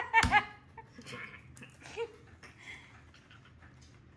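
A woman's brief laugh trails off with a dull thump at the very start. After that it is quiet apart from a few faint rustles and small handling sounds at the counter.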